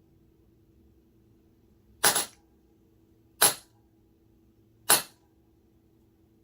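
Leather stamping tool struck with a mallet into damp leather: three sharp knocks about a second and a half apart, over a faint steady hum.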